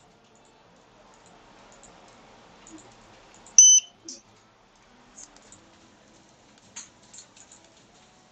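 A single short electronic beep about three and a half seconds in, one steady high pitch like a piezo buzzer, from the HMI display module's buzzer as it restarts after a reboot command. Faint scattered clicks follow, like a computer mouse being clicked.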